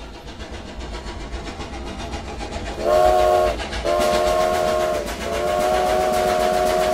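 Train sound effect: a train chugging on the rails, the rhythm growing louder, then its whistle sounds a chord in three blasts, the last one the longest.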